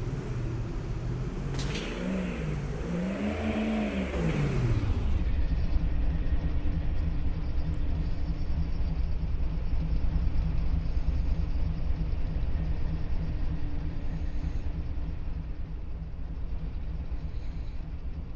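Train passing close by: a pitched drone that rises and falls about three times over the first few seconds, then a steady low rumble that slowly fades.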